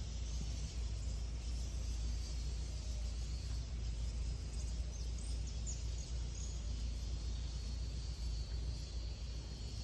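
Outdoor nature ambience: a steady low rumble under an even high hiss with a thin steady high drone, and a few short, high bird chirps about four to six seconds in.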